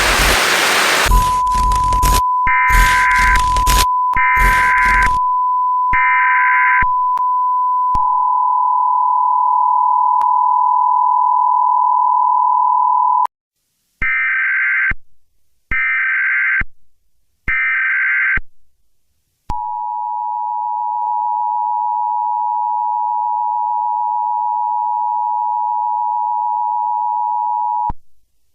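Emergency Alert System tones. A short burst of static gives way to a steady single tone overlaid by three screeching digital header bursts. Then comes the two-tone attention signal, another three header bursts, and the two-tone attention signal again, longer this time.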